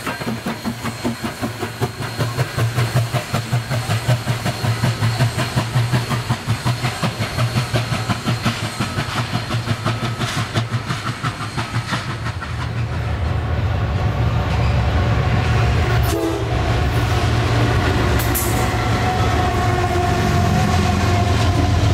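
A 2-8-2 Mikado steam locomotive working past with a rhythmic pulse of exhaust and running gear. About twelve seconds in this gives way to a Norfolk Southern freight train led by GE ES44AC diesel locomotives passing close, with a steady heavy rumble and rail noise. Thin high steady tones come in near the end.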